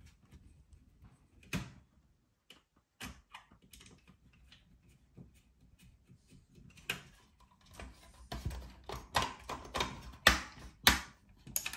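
Clicks, taps and knocks of a cassette deck's casing and mechanism being handled and fitted back together by hand. They are sparse at first, then come thick and fast in the last five seconds or so.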